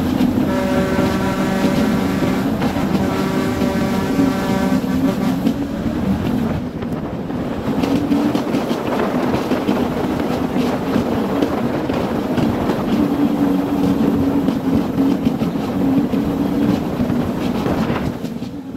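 Heavy diesel truck engine running steadily under load, with wind and road noise through the open cab window. A horn sounds for about four seconds near the start.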